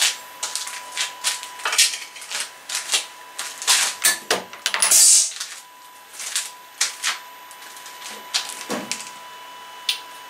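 Metal tooling being handled: irregular sharp clicks, clinks and knocks, with a short scraping rush about halfway through. A faint steady high tone runs underneath.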